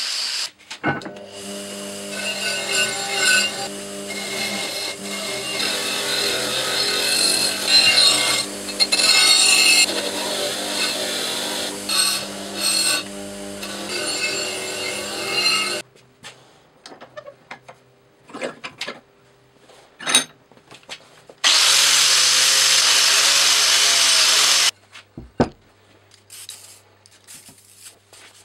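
Power grinders stripping rust from an old steel broad axe head. A short burst of an angle grinder is followed, about a second in, by a pedestal bench grinder whose wheel hums and scrapes against the steel for about fifteen seconds. A few clicks and knocks come next, then another loud run of grinding for about three seconds.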